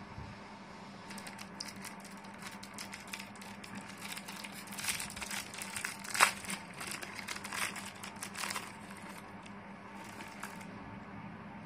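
Small clear plastic packet crinkling and crackling in the hands as it is opened. The rustle runs from about a second in to near the end, with one sharp crackle about halfway through.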